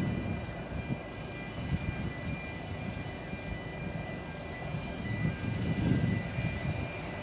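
Low, steady rumble of a narrow-gauge steam locomotive approaching, swelling louder a little past halfway.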